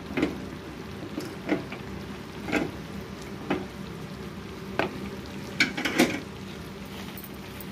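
Mashed banana and sugar mixture frying in an aluminium kadai with a low, steady sizzle, broken by about seven irregular knocks and taps.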